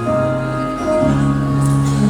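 Instrumental music accompaniment: held chords of sustained notes that change to a new chord about a second in, with no singing voice.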